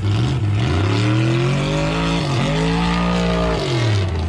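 Off-road truck engine revving hard. The pitch climbs over about two seconds, dips briefly, holds high, then falls away near the end.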